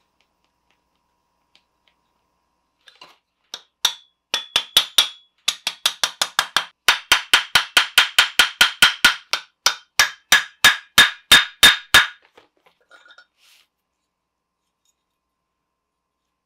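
Mallet tapping a silver elephant bracelet on a bangle mandrel to bend its tusks and nose into a bangle shape: a quick run of ringing taps, about three to four a second, starting a few seconds in and stopping about twelve seconds in. The ring drops in pitch about ten seconds in.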